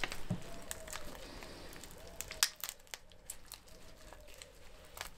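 Gloved hands working the knee end of a raw chicken drumstick, pulling loose cartilage and tendon: faint, scattered wet clicks and crinkles, the sharpest about two and a half seconds in.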